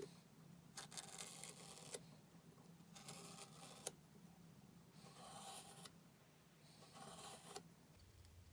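Small marking knife drawn along wood to score a line: four faint strokes, each about a second long, roughly two seconds apart.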